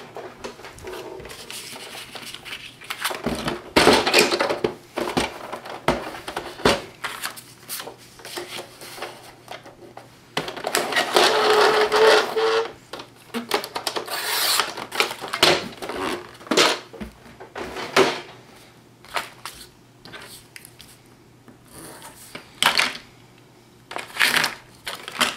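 Xyron adhesive machine fed by hand as paper pieces pass through it: irregular plastic clicks and mechanism noise with rustling of paper and adhesive film, and a longer stretch of running noise about halfway through.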